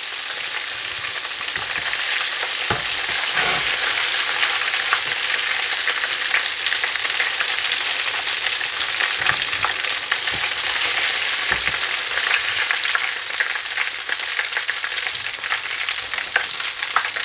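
Masala-coated cod pieces deep-frying in hot oil in a steel pan: a steady sizzle full of fine crackles. A metal spoon moves through the oil as the fried pieces are lifted out, with a few soft knocks.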